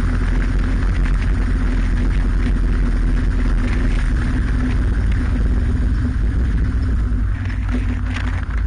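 Motorcycle engine running steadily under way, with a heavy low wind rumble on the bike-mounted microphone; it eases slightly near the end.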